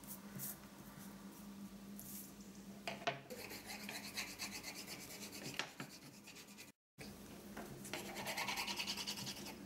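Wax crayons scribbling back and forth on paper: a fast, scratchy rubbing, with a sharp tap about three seconds in and a steady low hum underneath. The sound cuts out for a moment just before seven seconds.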